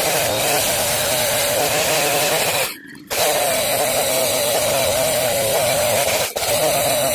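Chainsaw running at high revs, its pitch wavering under load as it cuts through a felled fir log. The sound drops out abruptly for a moment about three seconds in, then carries on.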